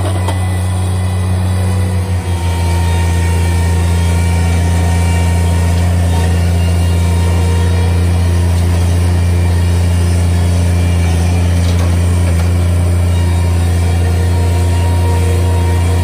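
Bobcat MT100 mini track loader's diesel engine running steadily at constant high revs while it lifts logs with its grapple, a loud even drone with a deep hum.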